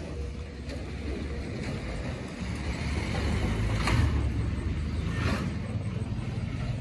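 Motor vehicle rumble with a hiss of road noise, growing louder to its peak about four seconds in and then easing.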